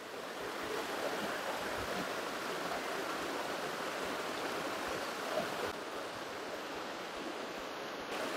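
A shallow rocky stream running over stones, a steady rush of water.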